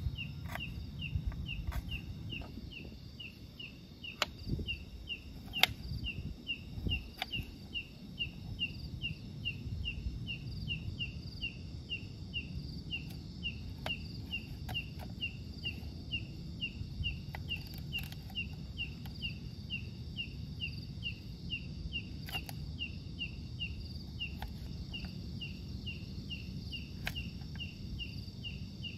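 Insects chirping steadily, about two chirps a second, with a continuous higher-pitched insect buzz over a low rumbling background. A few sharp clicks or knocks stand out in the first several seconds, the loudest about five and a half seconds in.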